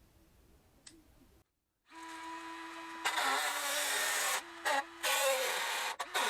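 An electric fan switching on: a steady hum starts about two seconds in, then a much louder whirring rush of air and motor noise from about three seconds that drops out briefly twice.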